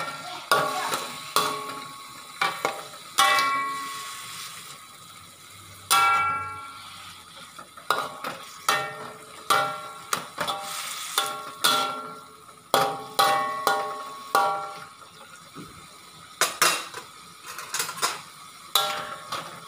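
A metal spatula scraping and knocking against a metal wok while stir-frying leafy greens and mushrooms. There are irregular clanks about once a second, each leaving a short metallic ring.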